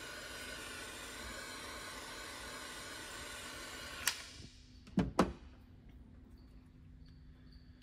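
Handheld butane micro torch hissing steadily while heating heat-shrink tubing over a wire splice, then shut off with a click about four seconds in, followed by two sharp clicks about a second later.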